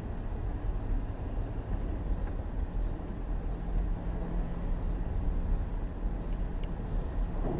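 Car interior noise while driving at about 40 km/h on a snow-covered road: a steady low rumble of engine and tyres on packed snow, with a low drone that sets in about three seconds in.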